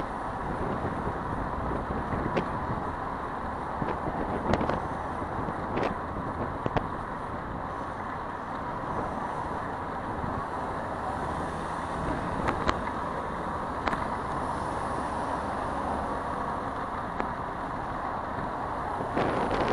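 Steady road traffic noise mixed with wind on the microphone, heard from a moving bicycle, with a few sharp clicks scattered through.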